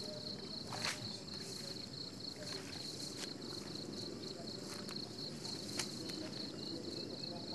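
Insect trilling steadily on one high, rapidly pulsing note, with three sharp clicks and low rustling.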